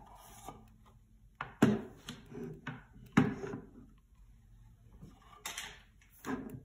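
Knocks and clatters of a Byredo eyeshadow palette being set down on a table and its mirrored lid being handled; the two loudest knocks come about a second and a half and three seconds in.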